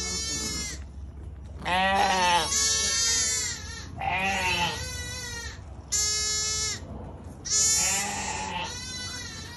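Shetland sheep and lambs bleating: about six wavering calls in a row from several animals, some overlapping and some high-pitched.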